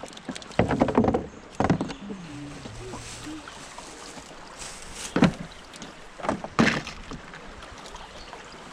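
A series of hollow knocks and clunks on a boat: a loud cluster about half a second in, another just after, then more about five and six and a half seconds in, over a steady hiss of moving water.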